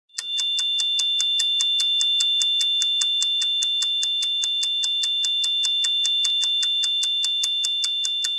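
Electronic logo-intro sound effect: a rapid, even ticking, about five ticks a second, over a steady high-pitched electronic tone, starting abruptly at the very beginning.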